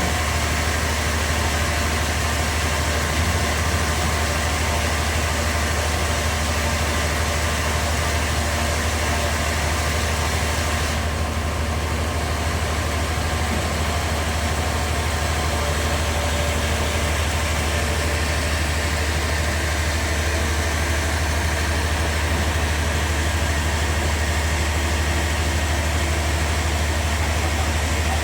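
Sawmill machinery running steadily: a constant low engine-like hum under an even mechanical noise.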